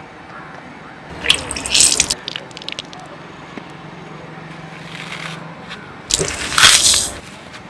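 Hands squeezing and crushing green floral foam bricks, in two short bursts: one about a second in and a longer one about six seconds in.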